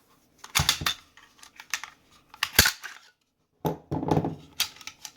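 Metal parts of a Sig P320 pistol clicking and clinking as it is handled and taken apart, several sharp knocks with short gaps, the loudest about two and a half seconds in.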